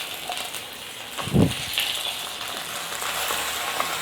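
Small onions and curry leaves sizzling steadily in sesame oil in a clay pot, with one dull knock about a second and a half in.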